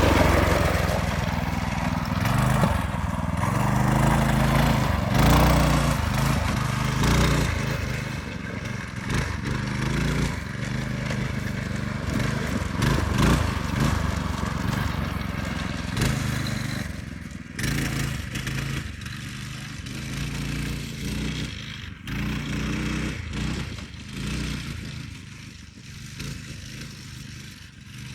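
8-horsepower go-kart engine running under way, its pitch rising and falling as it is throttled, with knocks and rattles from the kart over bumpy ground. It grows fainter as the kart moves away.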